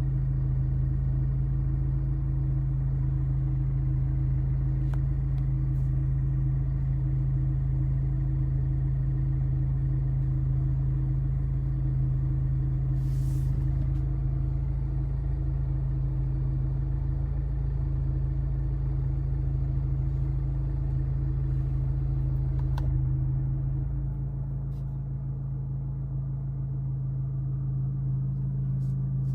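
Abarth 595's 1.4-litre turbo four-cylinder idling with the air conditioning on, a steady low hum and rumble with a faint regular pulsing: the A/C load that sets the steering wheel shaking. A little over three-quarters of the way through, the deepest rumble drops away and the sound gets slightly quieter.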